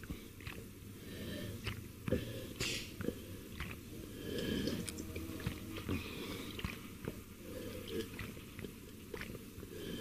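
A man drinking water from a glass close to the microphone: swallows, lip smacks and breaths, with scattered small clicks and a short breathy hiss a little over two seconds in.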